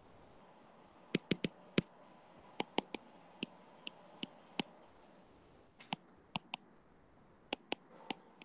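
Pen stylus tapping on a tablet screen while handwriting: a run of sharp, irregular clicks in small clusters of two or three, about eighteen in all, over a faint steady background hiss.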